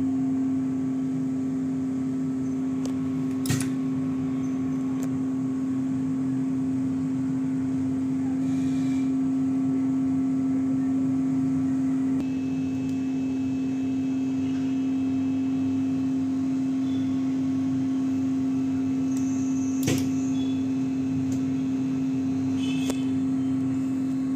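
Steady electrical hum of a TV panel COF bonding machine running during pre-bonding, with a few sharp clicks, one about three and a half seconds in and two more near the end.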